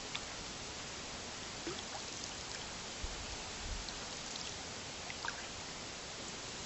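Water trickling and dripping from a canoe paddle as a canoe is paddled on a stream, over a steady hiss, with scattered small ticks and a couple of dull knocks near the middle.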